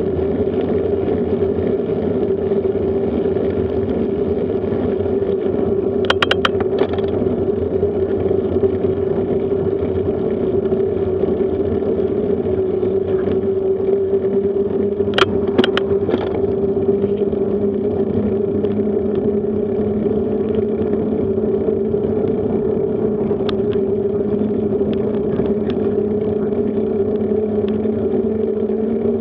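Bicycle rolling along an asphalt road, recorded by a camera mounted on the bike: a steady hum of tyres and drivetrain with wind on the microphone, the hum rising slightly in pitch in the second half. A few sharp rattling clicks come about six seconds in and again around fifteen seconds in.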